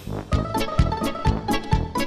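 Background music: plucked strings over a steady, quick beat.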